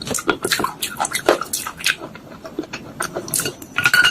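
Soaked clay pieces being crunched, a run of irregular wet crackles and small cracks, thicker near the end.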